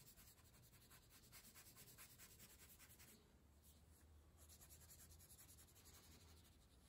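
Faint, rapid scratching of a wax crayon scribbling back and forth on paper, with a short pause about three seconds in.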